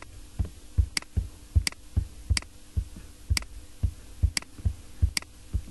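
Computer mouse clicking and its scroll wheel ticking as a document is paged through: a run of sharp clicks at uneven spacing, roughly one to two a second, with softer knocks in between.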